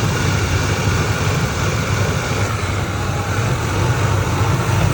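2003 Ford Expedition's V8 engine idling steadily at operating temperature, with the chirp it makes only when warm still low and inconsistent.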